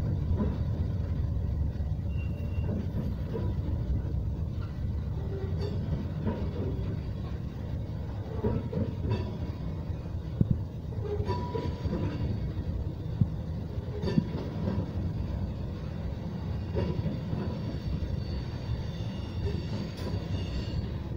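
Freight train's tank cars and covered hoppers rolling past: a steady low rumble of steel wheels on rail, with irregular clicks and knocks as the wheels cross rail joints.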